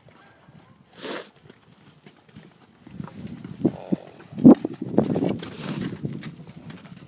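Horse hooves thudding irregularly on soft, muddy paddock ground as a horse gallops up close, loudest about four and a half seconds in. A brief rushing noise about a second in.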